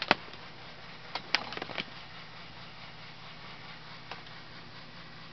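Handling noise from a handheld camera: a sharp click at the start, then a quick run of clicks and knocks about a second later and one faint click near four seconds, over a steady low hum.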